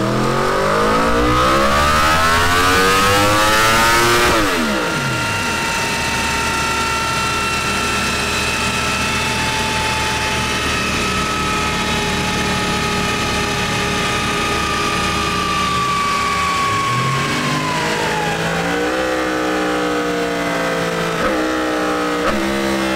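Yamaha R1 RN65's inline-four engine run on a motorcycle dyno for a tuning measurement: the revs climb steeply for about four seconds, then fall away, leaving a steady whine that slowly sinks in pitch. Near the end the engine revs up and down again in short pulls.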